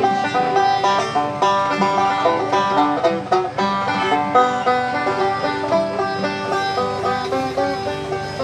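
A banjo and an acoustic guitar playing a tune together, the banjo picking quick runs of notes over the guitar's strummed chords.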